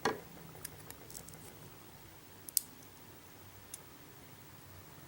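Small metal clicks of steel tweezers working a pin and spring out of a Schlage lock cylinder's pin chamber: a duller knock at the start, then a few scattered sharp clicks, the clearest about two and a half seconds in.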